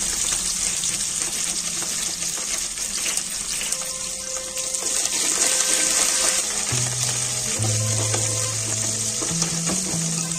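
Chopped green chillies, curry leaves and whole spices sizzling steadily in hot oil in an aluminium pot, with a steel ladle stirring them through the oil.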